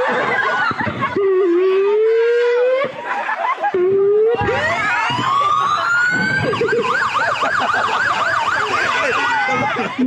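Siren-like wailing: long rising calls, then a sweeping rise about four seconds in that turns into a fast up-and-down warble, about three cycles a second.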